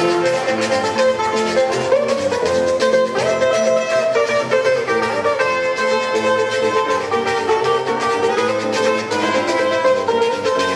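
Acoustic Colombian string ensemble of guitar, tiple and requinto playing an instrumental passage of an Andean carranga song, with a steady plucked-string melody over strummed chords.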